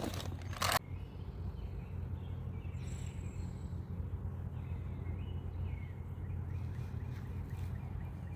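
Outdoor creekside ambience: a steady low rumble with faint bird chirps, and a brief rustling noise in the first second.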